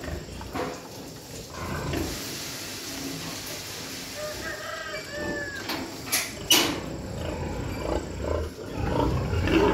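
Pigs grunting and calling in their pens, with a few short pitched squeals about halfway through and two sharp knocks about six seconds in.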